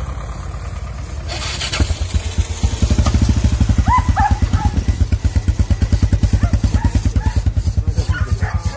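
Motorcycle engine idling with a steady, rapid, even pulsing that becomes much louder about three seconds in.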